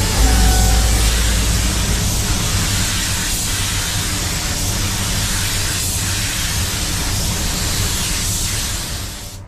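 Compressed-air paint spray gun hissing steadily while spraying paint onto a car body. The hiss fades out near the end.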